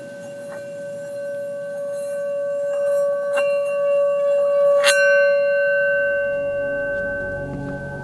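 Sustained bell-like ringing, several steady tones held together, struck afresh a few times, most strongly about five seconds in. It swells louder toward the middle and then slowly fades.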